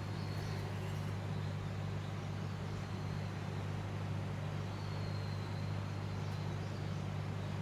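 A steady low hum from a running machine, holding an even pitch throughout.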